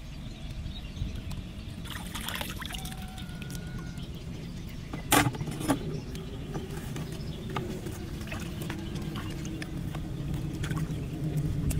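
Small splashes and trickles of hands working in shallow pond water, with two sharp knocks about five seconds in, over a steady low rumble.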